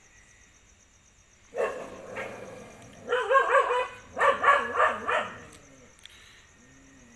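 Street dogs fighting: a sudden burst of barking about one and a half seconds in, then two rapid volleys of barks.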